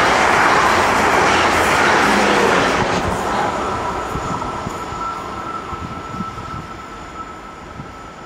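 South West Trains Class 444 Desiro electric multiple unit passing at speed: a loud rush of wheels and air that drops about three seconds in as the last coach clears. It then fades steadily as it recedes, with a thin steady whine lingering.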